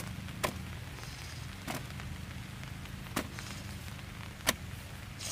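A series of sharp, short knocks or snaps, about one every second and a half, over a steady low rumble.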